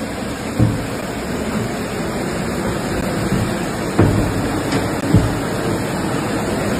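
Rushing floodwater, a steady roar, broken by three dull thumps.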